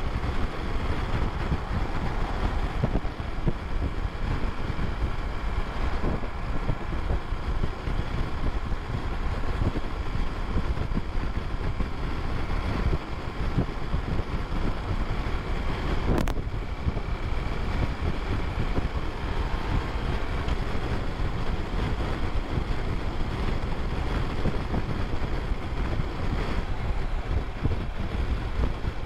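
Steady rush of wind noise on the microphone of a BMW R1150RT motorcycle at highway speed, about 90 to 105 km/h, with engine and road noise underneath.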